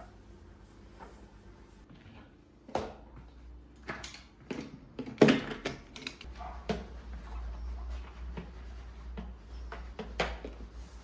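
Household items being handled in a kitchen: a series of light knocks and clatters, the loudest about five seconds in, with a low steady hum starting about six seconds in.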